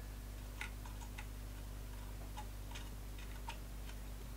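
Faint, irregular small clicks and taps as a multimeter's test-lead clip is handled and clipped onto a circuit board, over a steady low hum.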